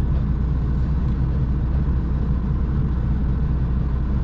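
Heavy goods lorry's diesel engine running, a steady low drone.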